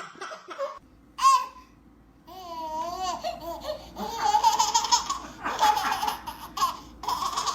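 Laughing in short bursts, with a wavering high-pitched note about two and a half seconds in.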